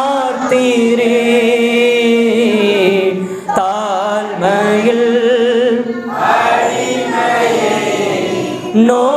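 Slow Tamil worship hymn sung without instruments: a man leads into a microphone and voices join him, holding long notes with a wavering vibrato.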